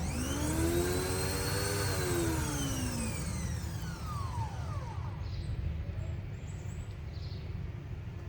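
A motor-driven whine that starts abruptly and climbs, holds for about two seconds, then falls away in pitch over the next few seconds, over a steady low rumble.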